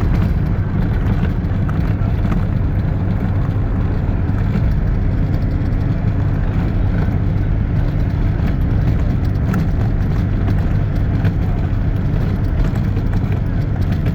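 Steady low rumble of a vehicle in motion, with a faint engine hum under it and no marked change.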